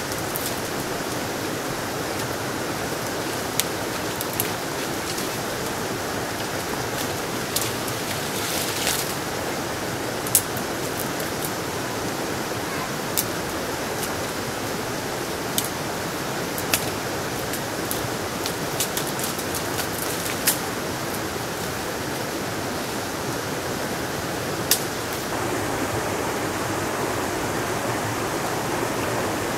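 Steady rush of a river or stream, with a dozen or so sharp snaps scattered through as dry twigs and branches are broken off by hand.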